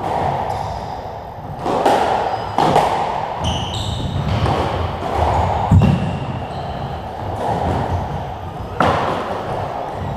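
Squash rally: the ball cracking off rackets and the court walls in a handful of sharp, echoing hits, the loudest near the middle, with short shoe squeaks on the wooden floor.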